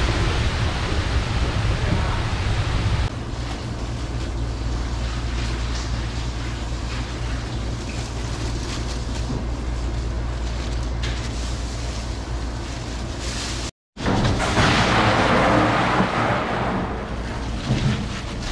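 Steady rushing noise over a low hum, the background noise of a working shop. After a sudden break about 14 seconds in, it comes back louder and brighter for a few seconds.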